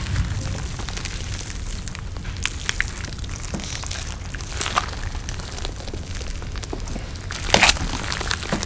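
Close-miked eating: chewing with scattered wet crackles and clicks over a steady low rumble, and a louder crunch near the end.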